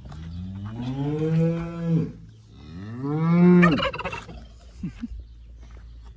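A farm animal calling twice, two long, drawn-out calls that rise and then fall in pitch, the second louder and shorter.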